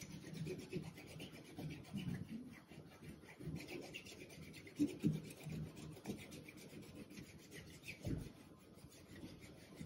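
Fingertips rubbing dried masking fluid off watercolor paper: a faint, irregular rubbing and scratching, with a light bump about halfway through and another near the end.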